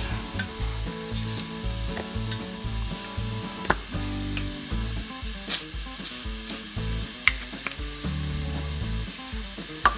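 Steady sizzling hiss of penetrating oil on the heated steel pulley hub, with background music underneath and a few light clicks.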